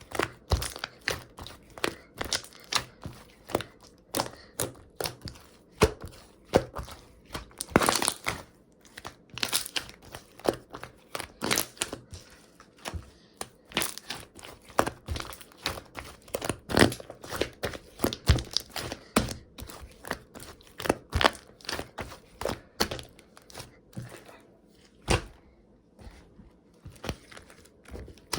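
Aloe slime being squished, pressed and poked by hand, giving an irregular run of sharp wet clicks and pops, several a second, some much louder than others.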